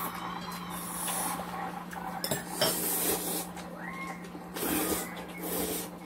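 Table eating sounds: chopsticks and spoons clinking against bowls and a pot, with a couple of sharp clinks about two and a half seconds in, and noodles being slurped.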